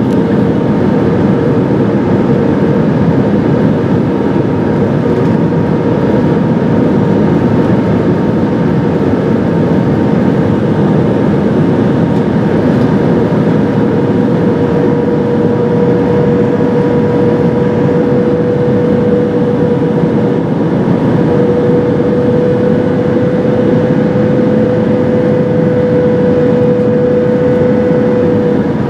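Airbus A319-112 cabin noise on approach: the steady rush of airflow with the hum of the CFM56 turbofan engine beside the wing, carrying a steady tone that climbs slightly in pitch in the second half.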